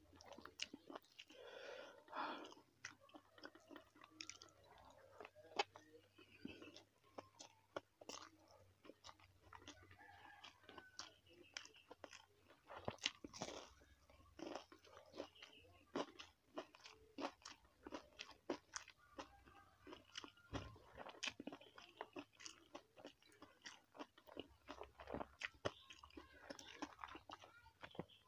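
Close-miked eating: steady chewing with crunchy bites and wet mouth clicks throughout.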